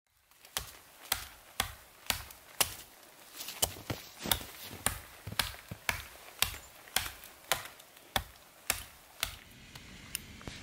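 Hatchet chopping into the trunk of a small standing tree: a steady run of sharp blows about two a second, stopping about nine seconds in.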